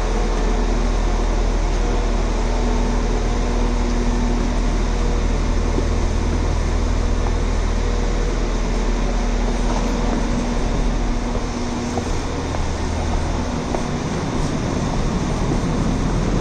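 Steady mechanical hum of a train standing at a station platform, its idling equipment giving a low drone over a wide rushing noise; the deepest part of the hum drops away about twelve seconds in.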